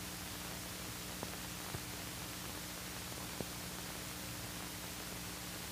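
Steady hiss with a low hum, the background noise of an old film soundtrack, with a few faint clicks.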